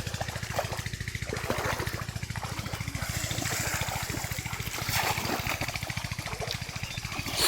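Water splashing and trickling in a shallow pond, with the louder splashes about five seconds in and near the end. A steady, rapid low pulsing drone runs underneath.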